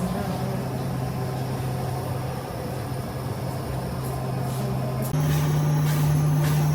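Steady low machine hum over a background of noise. About five seconds in, the hum steps up a little in pitch and gets louder, and a few faint knocks follow.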